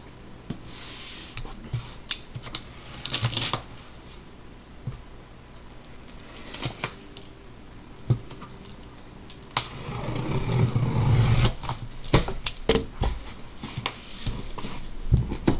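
Cardboard case of trading-card boxes being handled and opened: scattered clicks, taps and cardboard scraping, with a longer stretch of rubbing and scraping about ten seconds in.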